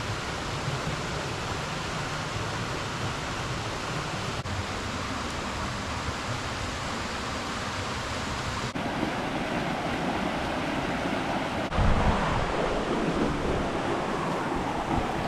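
Waterfall water rushing in a steady roar of noise, its tone shifting about nine seconds in. A brief low buffet hits the microphone about twelve seconds in.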